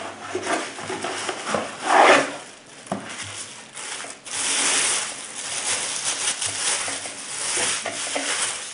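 Cardboard box being opened and handled, with short scraping and tapping noises, then a thin plastic bag crinkling and rustling from about four seconds in as it is pulled off a mug.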